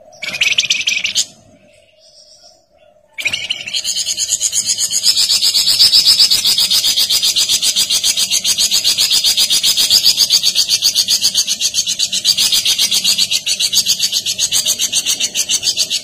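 A caged songbird gives a short high call, then about three seconds in starts a long, fast, high trill that runs on without a break.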